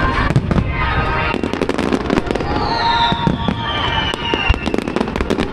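Fireworks display: a rapid run of bangs and crackles from aerial shells bursting. About two seconds in, a high whistle starts and falls slowly in pitch for about two seconds.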